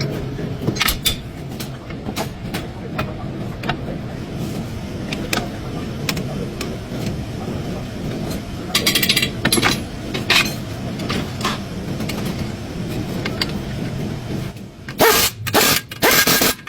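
Car engine running steadily, with scattered clicks and knocks over it and a few loud sharp bursts near the end.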